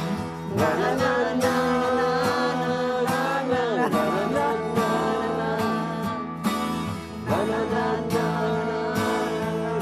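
Live band music with guitar, a song's opening bars.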